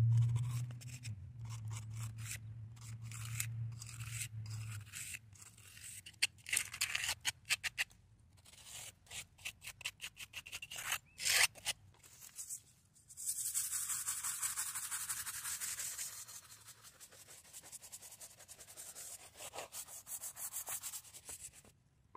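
A brush scrubbing a weathered stone headstone, in many short scratchy strokes. A low hum sounds in the first few seconds, and a steady hiss lasts about three seconds in the middle.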